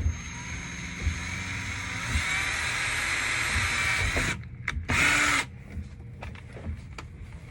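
Power drill driving a screw: the motor runs steadily for about four seconds, then gives a short burst about five seconds in.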